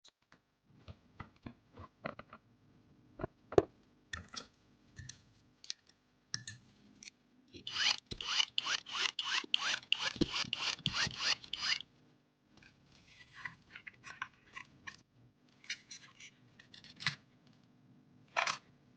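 Hands working on PC hardware: scattered clicks and taps, then about four seconds of rapid scratchy strokes, several a second, followed by lighter rubbing and clicks near the end.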